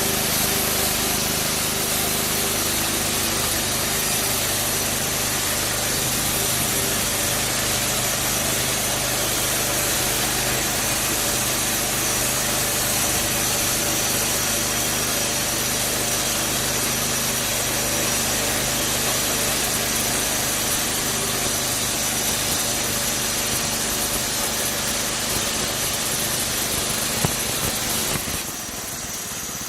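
Homemade band sawmill running steadily, its engine driving the band blade through a soft cedar log with a dense, hissing cutting noise. Near the end the cutting noise falls away abruptly and the sound drops, leaving the engine running quieter as the blade comes out at the end of the cut.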